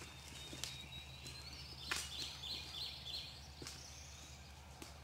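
A few footsteps through tall grass as a person walks away, with a songbird singing a phrase of quick repeated notes in the middle.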